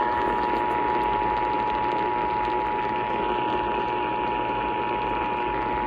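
Emergency Alert System attention signal: the steady two-tone alert (853 and 960 Hz sounded together), held unbroken over a background hiss and hum from the radio receiver.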